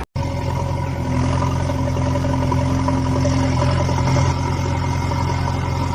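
Engine running steadily at idle, a low, even drone that starts just after a brief gap at the very beginning.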